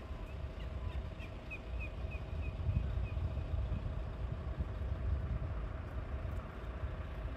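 A steady low engine rumble with a steady hum over it. A quick run of about ten short, high chirps comes in the first three seconds.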